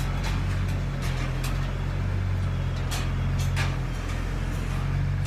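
Farm tractor engine running steadily, a low even hum with a few faint clicks.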